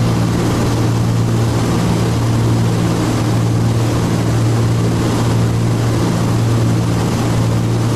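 Cabin drone of a Cessna T303 Crusader's twin piston engines and propellers in cruise: a steady low hum with fainter overtones over an even hiss, with no change in speed or power.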